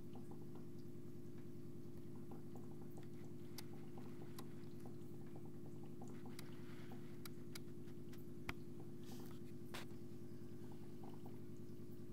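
Aquarium equipment running with a steady low hum. Faint scattered clicks and ticks sit over it, with one sharper click about eight and a half seconds in.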